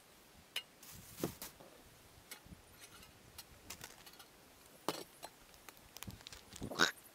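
Gear being rummaged in a vehicle's cargo area: scattered clicks, knocks and light clinks as a plastic bowl and metal spoon are picked up, with one louder scrape near the end.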